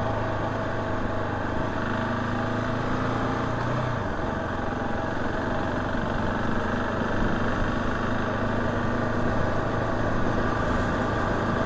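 KTM 690 SMC R's single-cylinder engine running steadily under the rider, its low tone dropping a little about four seconds in.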